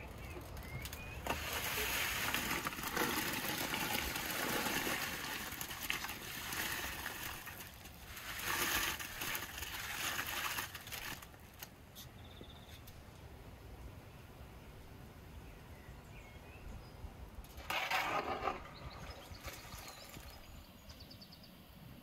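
Live crayfish tipped from a wicker basket into a large pot of boiling water, heard as bursts of rustling and splashing: a long one in the first few seconds, another about eight seconds in and a short one near eighteen seconds.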